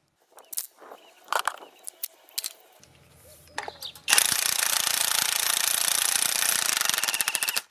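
Clicks and knocks of the tool being set on the nut, then, about four seconds in, the ONEVAN 3100 Nm brushless cordless impact wrench hammering hard and fast on a seized, rusted wheel-hub nut for about three and a half seconds before stopping suddenly.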